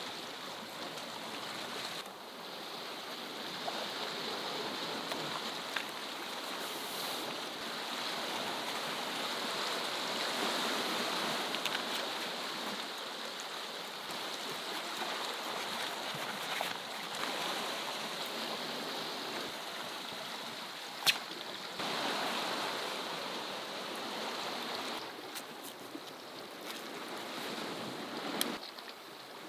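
Sea waves washing and surging against a rocky shore: a steady rushing noise that swells and eases. A single sharp click about two-thirds of the way through.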